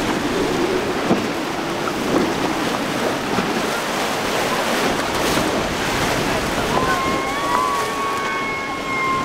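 Surf and wind rushing on the microphone as a center-console boat with a Yamaha 150 outboard runs past at speed, throwing spray. Voices call out during the first few seconds, and a steady high tone is held for about two seconds near the end.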